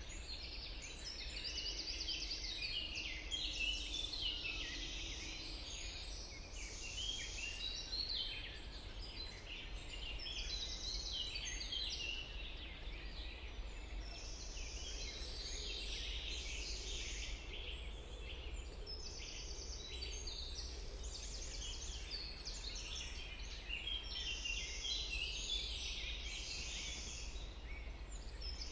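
A chorus of many songbirds singing at once, their songs and calls overlapping without a break, over a low steady rumble.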